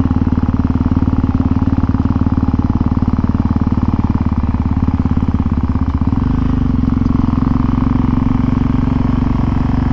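Motorcycle engine running under way with a fast, even firing pulse. The engine note changes abruptly about six seconds in.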